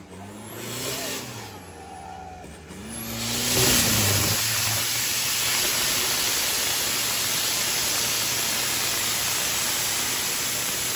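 Modified off-road 4x4 truck's diesel engine revving in short rises and falls, then from about three seconds in held at full throttle, loud and steady, as the truck churns through deep clay mud.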